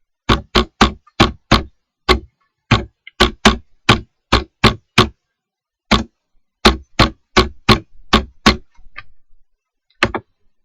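Computer keyboard being typed on: about two dozen sharp, separate keystrokes in uneven runs as a name is entered, with a short pause about halfway and a longer one before a last keystroke near the end.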